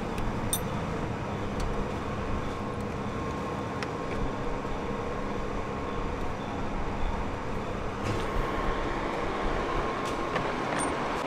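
Steady low mechanical rumble with a faint hum, and a few small clicks and taps as turbocharger parts and lines are handled.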